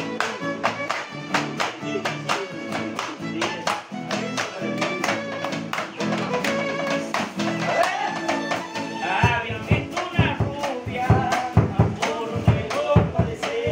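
Live cueca played on two strummed acoustic guitars, a violin and a bombo drum, in a steady dance rhythm. A man's voice comes in singing about eight seconds in, and heavy drum beats join about nine seconds in.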